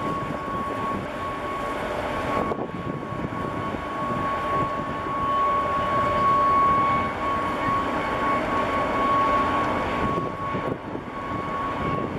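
Steady machinery rumble from a large crude oil tanker under way close by, with a constant high whine on top, a little louder about midway through.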